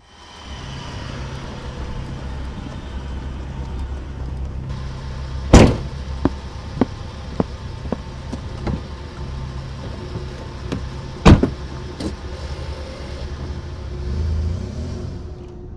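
An SUV's engine running steadily, with two loud car-door slams about six seconds apart and several lighter clicks and knocks between them; near the end the engine note swells briefly.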